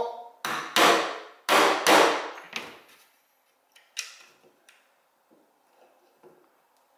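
Steel hammer tapping a punch to drive the trigger pin out of a Glock 20SF pistol frame. About five sharp ringing taps come in the first two and a half seconds, then a few faint clicks as the punch and frame are handled.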